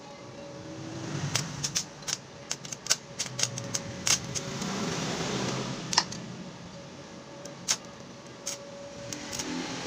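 Electric arc welding on a motorcycle's steel frame: the arc crackles and spits with sharp pops in a run from about a second in to about six seconds, eases off, then starts crackling again near the end. A faint steady hum sits underneath.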